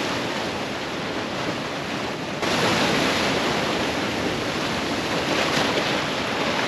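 Ocean surf breaking and washing over lava rocks, a steady rush of white water that jumps louder suddenly about two and a half seconds in.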